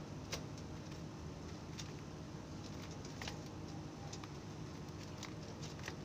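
Zebra doves shifting about in a wire cage: scattered faint clicks and taps, about one every second or so, over a steady low hum, with no cooing.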